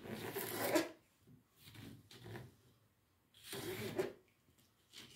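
Kitchen knife slicing lengthwise through a fresh cucumber on a plastic cutting board: a few separate cutting strokes, each lasting under a second.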